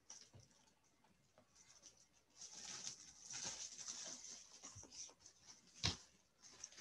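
Quiet room with faint rustling noise through the middle and one sharp click near the end.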